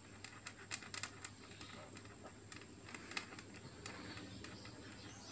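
Faint, scattered light clicks and taps at an irregular pace over a low steady hum.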